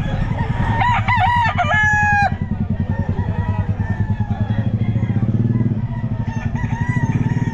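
A rooster crows once about a second in, a run of rising-and-falling notes ending in a held note; a fainter crow follows near the end. Underneath, an engine idles with a rapid low throb.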